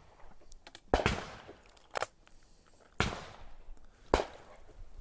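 Shotgun reports at a clay shooting ground: several sharp cracks roughly a second apart, most trailing off in a short echo.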